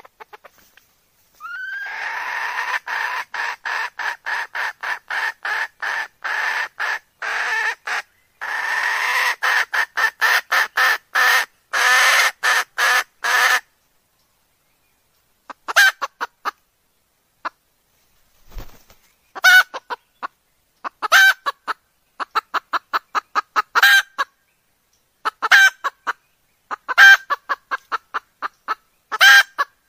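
Hen's calling cluck: a long run of quick, evenly repeated clucks, about three to four a second, stops at about the middle. After a pause of about two seconds it comes back in short quick bursts.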